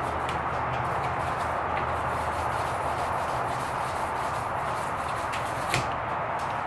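Hand-sanding of a knife's curly birch handle scales and steel pins: sandpaper on a block rubbed back and forth in steady strokes, at the finer grits.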